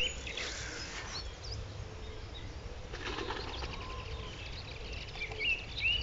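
Song thrush singing: a few faint high notes, then a short whistled note repeated four or five times near the end, in its typical repetitive phrases.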